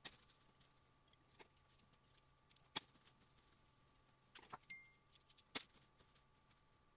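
Near silence with a faint steady hum and a few irregular light clicks and taps as fingers pick up and press chopped nut crumbs against a wooden board.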